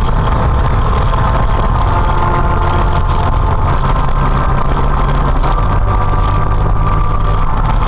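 Car engine and road noise heard from inside a moving car through a dashcam microphone: a steady low hum that shifts about five and a half seconds in.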